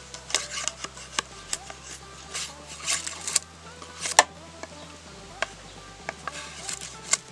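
A machete chopping at a green bamboo pole: about a dozen sharp, irregularly spaced knocks, the loudest about four seconds in, over background music.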